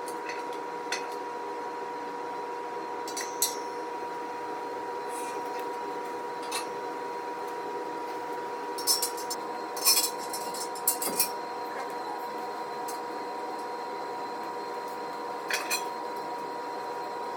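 Scattered sharp metallic clinks and clanks of steel squat-rack parts and hardware being handled during assembly, a cluster of them about halfway through, over a steady hum.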